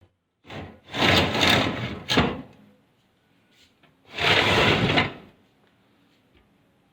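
Glass sliding door rolling along its track: a short slide, then a longer run that ends in a knock a little after two seconds in, and about four seconds in another slide.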